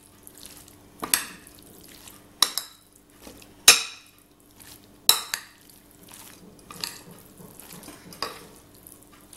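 A metal spoon mixing a mayonnaise-dressed salad in a large bowl, knocking against the bowl about seven times at irregular intervals of a second or so, with quieter scraping and mixing between the knocks.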